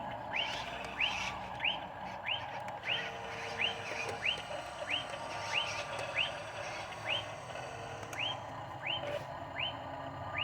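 A short chirp that sweeps upward, repeated very evenly about three times every two seconds, most likely a bird calling.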